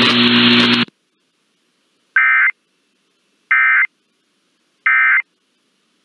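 Three short, identical two-tone digital data bursts, about a second and a half apart: the SAME end-of-message code ("NNNN") of a NOAA Weather Radio Emergency Alert System broadcast, which signals that the warning message has ended. Before them, a loud hiss with a low hum cuts off just under a second in.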